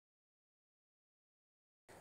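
Near silence: a dead-silent gap, with faint room noise coming in at the very end.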